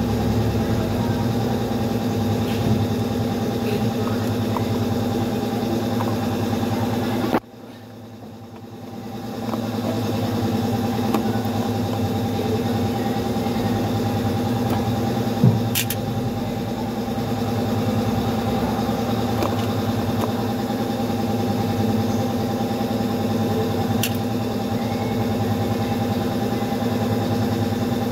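An engine idling steadily with an even hum. The sound drops away abruptly about a quarter of the way in and swells back over a couple of seconds, and a single sharp click comes about halfway through.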